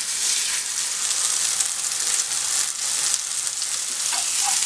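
Lamb burger patties searing in oil in a very hot frying pan: a steady sizzle with small crackles.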